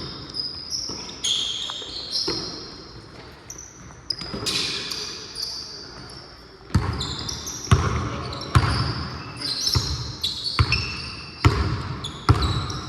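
Basketball being dribbled, bouncing about once a second in the second half, with sneakers squeaking on the court as players move.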